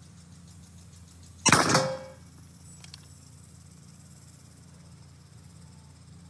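A single shot from an Evanix REX-P .357 PCP air pistol built up as a mini-carbine with the rifle's air cylinder: a sharp crack about a second and a half in with a short ringing tail, followed about a second later by a faint click.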